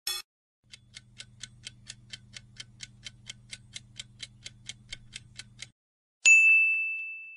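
Countdown timer sound effect: a clock ticking about four to five times a second over a low steady hum for about five seconds, then a single bright ding near the end that rings out, marking that time is up.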